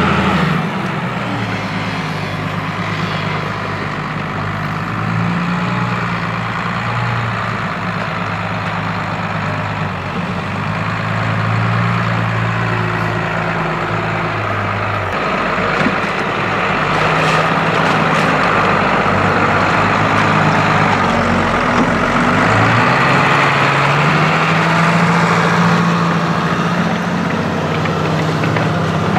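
New Holland M135 tractor's diesel engine running steadily under heavy load while pulling a mounted plough through wet, muddy ground. The engine note sags for a stretch in the middle and picks up again about two-thirds of the way through.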